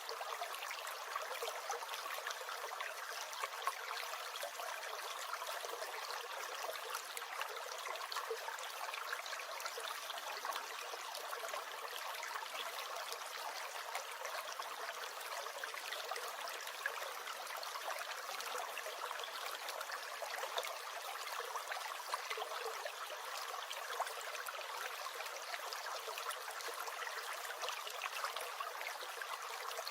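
Small stream gurgling and trickling steadily, an even rush of water with little splashes throughout.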